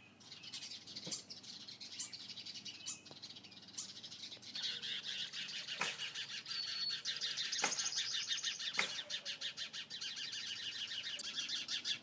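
Small songbirds chirping in fast, rapidly repeated high notes, growing denser and louder from about four seconds in, with a few sharp clicks scattered through.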